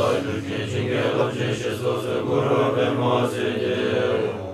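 A group of Buddhist monks reciting prayers together in a continuous many-voiced chant, fading out near the end.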